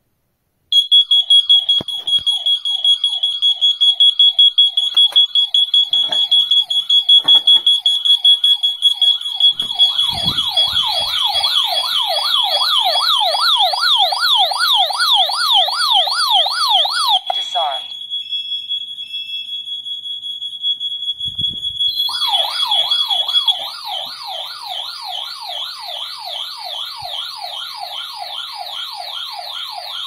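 A wireless smoke detector set off by smoke from burning paper, with its alarm system's host unit sounding as well. A continuous high piercing tone sounds together with a siren of rapid rising-and-falling sweeps. The siren cuts out briefly about halfway through and then starts again, and the steady tone stops a little after that.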